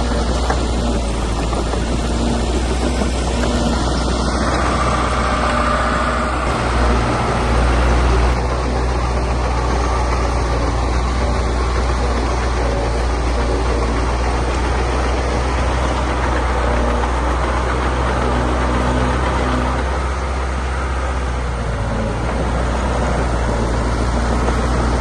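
Diesel engine of heavy earthmoving machinery running steadily, with a deep, even drone and a brief swell in engine sound about a third of the way in.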